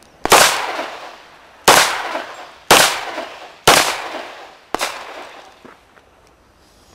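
A semi-automatic pistol in .40 calibre fired five times with lead-birdshot cartridges, the shots roughly a second apart and each sharp crack trailing off in an echo. The fifth shot is fainter than the first four.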